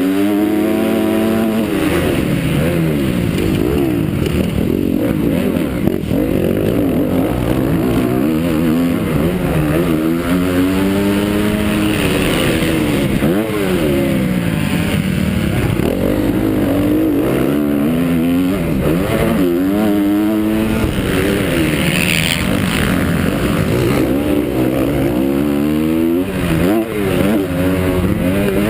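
Honda CRF250 four-stroke motocross bike engine, heard from on board, revving up and dropping back again and again as the rider accelerates, shifts and shuts off around the track.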